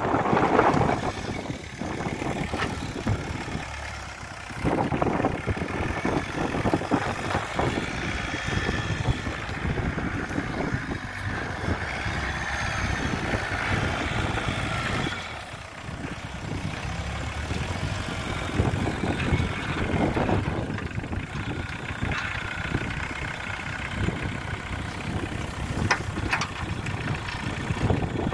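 Homemade four-wheel-drive tractor's engine running steadily while its front loader lifts brush, the sound dipping briefly about four seconds in and again about halfway through.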